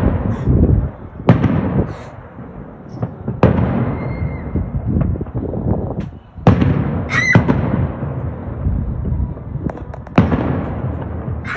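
Aerial fireworks shells bursting in sharp, loud booms, about four of them a few seconds apart, each trailing off in a long rolling rumble. A brief wavering high whistle comes about seven seconds in.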